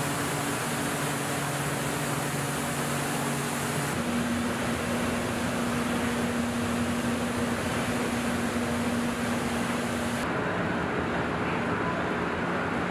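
Assembly-plant ambience: a steady rush of ventilation and machinery with a low hum underneath. The mix changes abruptly about four seconds in and again near the end.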